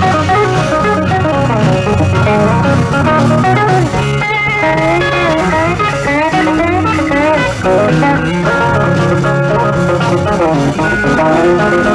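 Rock-and-blues band playing live: electric guitar lead with wavering, bent notes about four to seven seconds in, over bass and drums.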